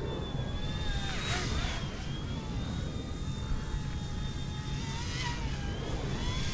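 Small electric toy RC helicopter (Eachine E120) in flight: a thin motor and rotor whine whose pitch wavers as the throttle changes, over wind rumbling on the microphone.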